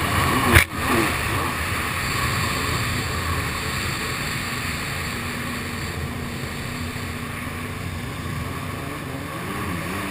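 Kawasaki SX-R 800 stand-up jet ski with a TBM dry pipe running at speed, its two-stroke twin engine under rushing spray and wind on the microphone; a sharp thump about half a second in.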